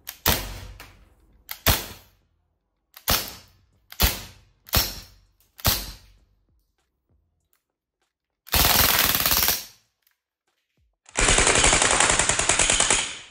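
Crosman A4-P CO2 airgun firing six single shots a second or so apart, each ringing briefly afterwards. Then it fires two rapid-fire bursts, a short one and a longer one that cuts off suddenly.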